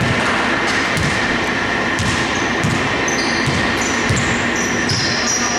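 A basketball dribbled on a wooden indoor court, several irregular bounces, with short high sneaker squeaks on the floor.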